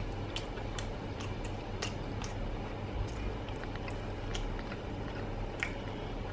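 A person chewing a mouthful of soft steamed pork bun, heard as scattered faint clicks from the mouth over a steady low background hum.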